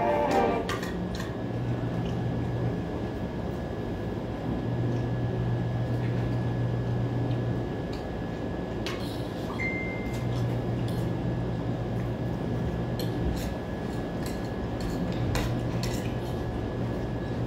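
Serving spoon and dishes clinking now and then as food is dished onto a plate, over a steady low hum in the room.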